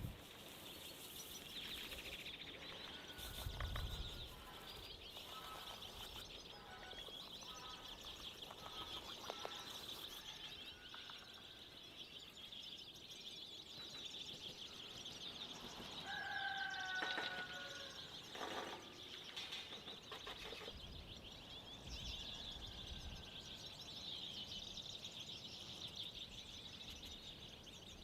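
Birds chirping, with a clear run of calls about sixteen to eighteen seconds in, over a faint steady high-pitched hiss and a few scattered clicks.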